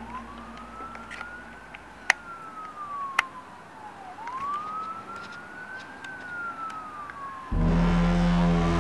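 A siren-like wailing tone rises quickly and falls slowly, twice, about four seconds per cycle, with two sharp clicks between. Near the end a much louder, steady, low droning tone with many overtones comes in over it.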